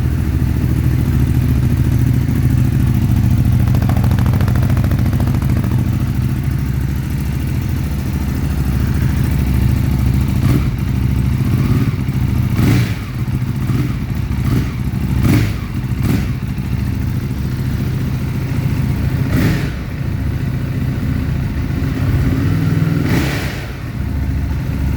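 2015 Ducati Hypermotard 821's 821 cc L-twin on its stock exhaust, idling steadily, then blipped several times from about ten seconds in: short revs that drop back to idle.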